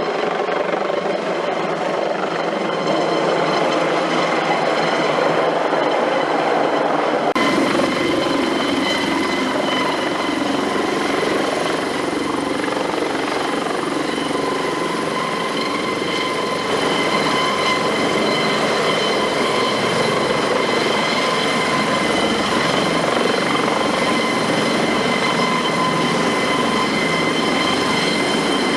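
Eurocopter AS365 Dauphin twin-turbine helicopter running: a steady high turbine whine over rotor noise. About seven seconds in the sound changes suddenly and a deeper rumble joins in.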